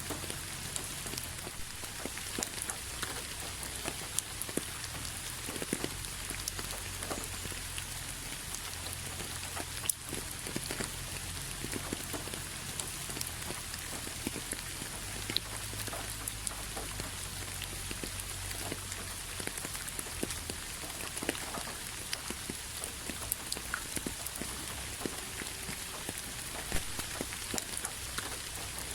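Steady rain falling, a continuous hiss dotted with many separate drop ticks.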